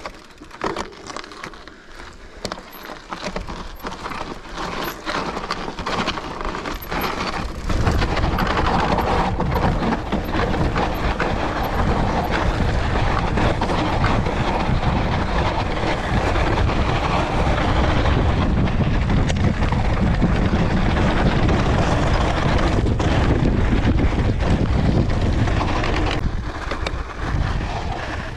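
Mountain bike rolling downhill on a loose gravel and dirt trail, the tyres crunching and the bike rattling over stones with many sharp clicks. From about eight seconds in, a loud steady rush of wind on the microphone takes over as the bike picks up speed.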